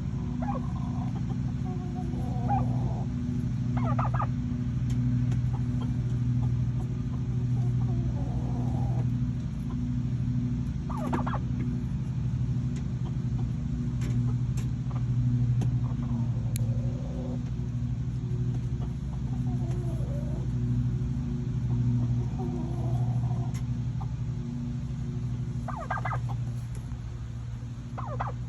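Domestic turkeys calling: a tom gobbling about four times, with softer hen calls between the gobbles. A steady low hum runs underneath.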